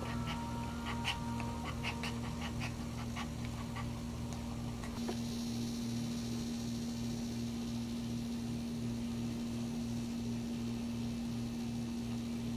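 Small dog in labour panting quickly, over a steady low hum. Short high sounds come with the panting during the first few seconds and stop about five seconds in.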